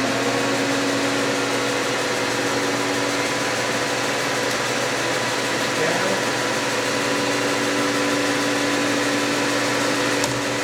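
Sheldon R-15 engine lathe running at its top spindle speed of 1250 rpm: a steady mechanical whine from the headstock drive over a hiss. A single sharp click near the end.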